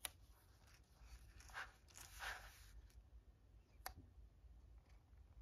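Faint handling of washi tape: a strip peeled off the roll with two soft rasping pulls and pressed onto a paper notebook page, with light ticks at the start and about four seconds in.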